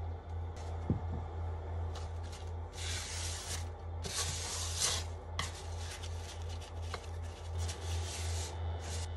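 Folded kitchen paper, held in chopsticks, wiped around the inside of a non-stick pot to clean out leftover frying oil: several strokes of rubbing starting about three seconds in. There is a light knock about a second in.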